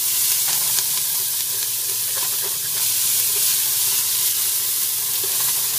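Diced onion and garlic sizzling in hot olive oil in an aluminum pot, just added and starting to fry down. It is a steady hiss with a few light clicks from stirring.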